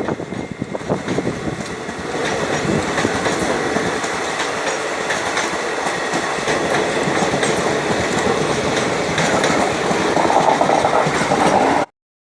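Train running on rails: wheels knock over the rail joints for the first two seconds, then the running noise steadies and grows louder. It cuts off abruptly about half a second before the end.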